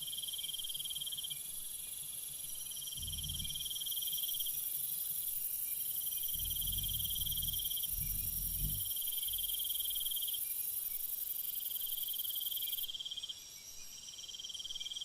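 Insects trilling in repeated bursts of about a second and a half, over a steady high hiss.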